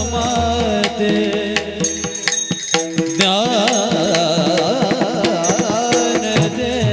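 Varkari kirtan music: mridang drumming over steady held accompanying tones, with a voice singing a wavering melodic line from about halfway.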